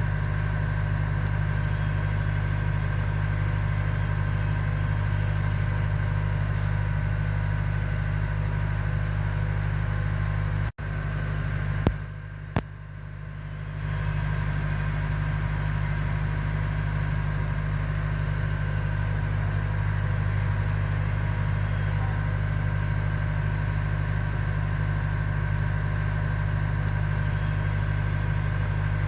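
A steady low hum runs throughout. About eleven seconds in it cuts out abruptly, two sharp clicks follow, and the hum fades back in.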